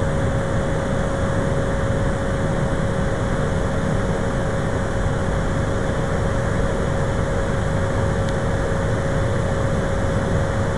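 Cessna Grand Caravan's PT6A turboprop engine and propeller running steadily, heard inside the cockpit: an even drone with one held whine.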